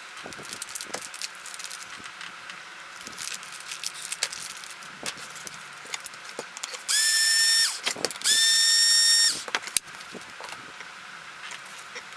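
A small electric screwdriver runs twice, about a second each, a steady whine that spins up at the start of each run, driving in the screws for battery hold-down posts. Light clicks and taps of small parts being handled come before and after.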